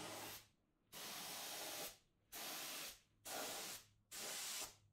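Compressed-air spray gun spraying etch primer in short trigger pulls: a hiss that stops just after the start, then four more bursts of about half a second to a second each, with brief gaps between.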